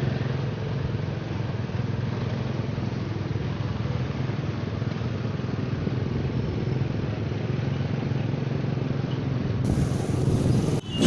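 Motorcycle engine running steadily while riding, with wind rushing over the microphone. Near the end the sound changes abruptly.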